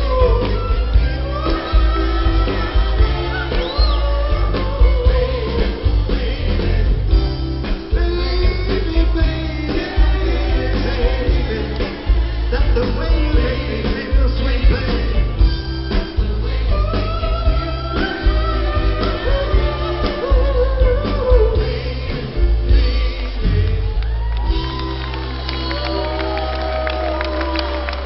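A soul vocal group singing live with a backing band of bass, drums and guitar, a lead voice over the group. Near the end the band holds one sustained closing chord while the singer's voice slides over it.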